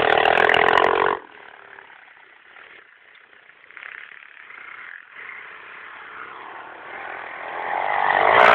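Mini pit bike engine running: loud close by, dropping away sharply about a second in to a faint, distant note, then growing steadily louder as the bike comes back, loudest near the end.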